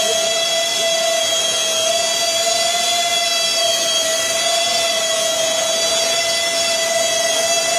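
Ducted fans of a radio-controlled F-35 STOVL model jet running steadily in a hover: a constant high whine over a loud rushing hiss.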